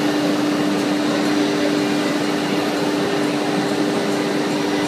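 CNC wood router running with its 9 kW HSD air-cooled spindle: a steady hum with two held tones over a constant hiss, as the gantry moves the spindle head over the table.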